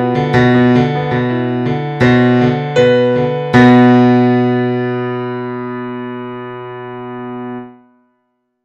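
Piano music: a string of struck notes, then a final loud chord about three and a half seconds in that rings and slowly fades before cutting off near the end.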